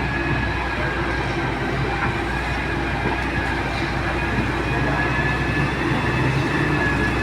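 Heavy-duty excavator running steadily, a low diesel engine hum with a thin steady whine above it.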